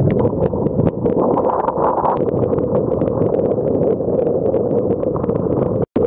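Strong wind buffeting the microphone, mixed with choppy water slapping and splashing, as a loud, steady rush with frequent crackles. It cuts out completely for an instant near the end.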